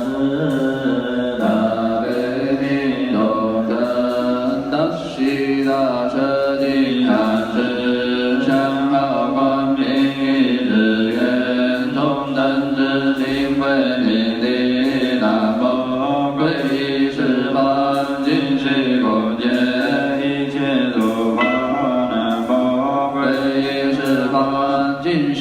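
Background music of slow, sustained vocal chanting: long held notes that shift gradually in pitch, without a break.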